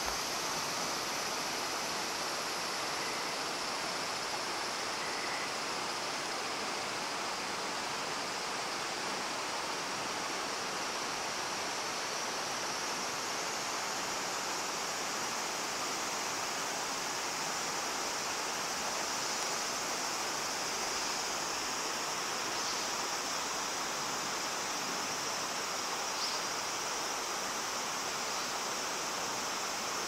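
Shallow, clear stream running over a gravel and pebble bed: a steady rush of flowing water.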